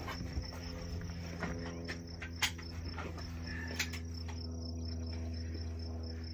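Insects chirping in a fast, even pulse of about five beats a second over a low steady hum, with two faint clicks about two and a half and four seconds in.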